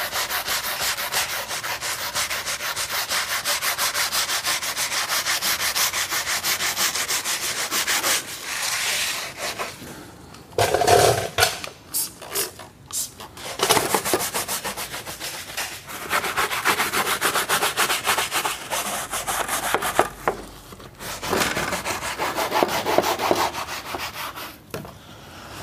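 Bristle detailing brush scrubbing textured black plastic bumper trim wet with cleaner, in rapid back-and-forth strokes that pause and restart a few times. This is the deep-cleaning stage that lifts ground-in dirt out of faded trim.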